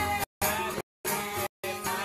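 Sikh kirtan: harmonium and tabla accompanying group singing. The sound cuts out to silence for a split second three times.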